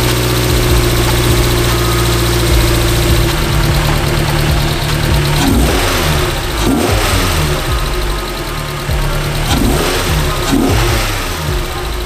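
Mazda MX-5 Miata (NC) four-cylinder engine breathing through an AutoExe intake, idling steadily, then revved up and let fall back several times from about three seconds in.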